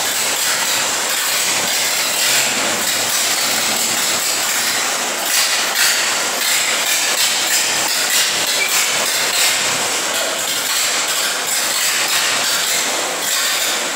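1932 Ford AA truck's four-cylinder engine running steadily on its first start after long storage.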